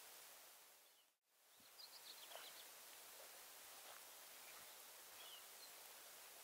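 Near silence: faint outdoor hiss with a few faint, high bird chirps. The sound drops out completely for about half a second about a second in.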